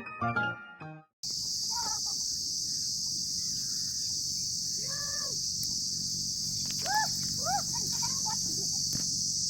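Steady high-pitched insect chorus, crickets or cicadas shrilling without a break. A few short bird calls sound over it, one about five seconds in and two quick ones near the end.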